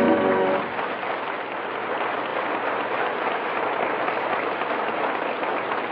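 A music cue ends about half a second in, followed by studio audience applause that holds steady.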